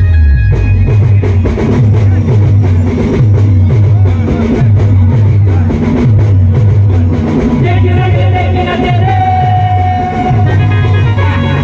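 Loud live Adivasi band music over a PA, with a steady heavy drum beat. About eight seconds in, singing into microphones comes in over it.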